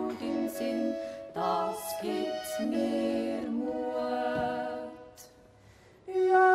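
Three women singing a Swiss folk song in close harmony, holding long notes. The singing breaks off in a short pause about five seconds in, then comes back louder just before the end.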